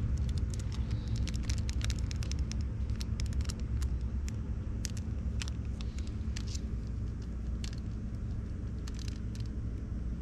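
Outdoor background noise: a steady low rumble with scattered sharp clicks and crackles, most of them in the first half.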